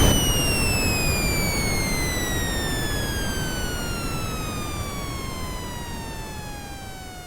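Synthesized jet-engine sound effect, built from generated tones and brown noise: a whining tone with overtones glides steadily down in pitch over a hissing, rumbling noise, the whole fading, like a turbine spooling down.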